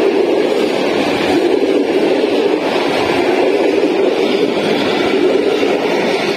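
Train passing close by: a loud, steady rolling rumble of wheels on the rails.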